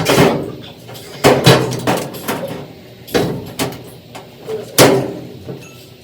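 About six loud knocks and clanks, each with a short ringing tail, from the dryer's sheet-metal panels being handled and fitted back into place.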